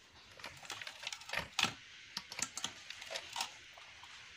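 Cut tilapia pieces being handled in a metal bowl: a string of irregular wet clicks and taps, the loudest about a second and a half in.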